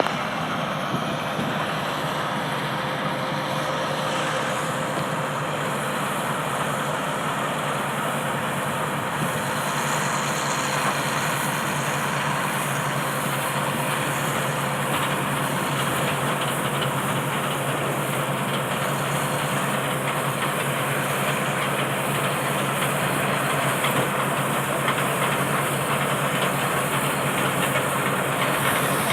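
Combine harvester running steadily in a wheat harvest: a constant mechanical drone with hiss and a faint steady hum, unchanging throughout.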